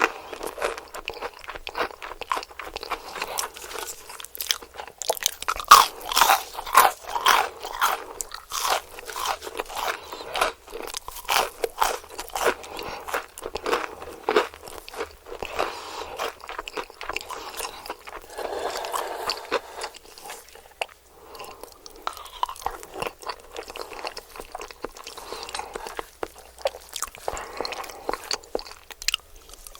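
Crunchy biting and chewing of KFC fried chicken, recorded close to the microphone: a steady run of crisp crunches, densest and loudest about six to eight seconds in.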